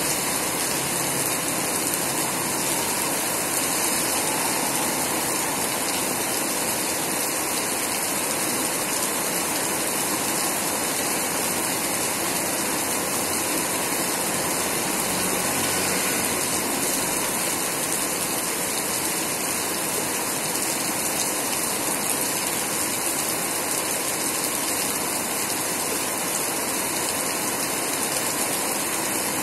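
Heavy typhoon rain falling steadily, a constant rushing hiss of water.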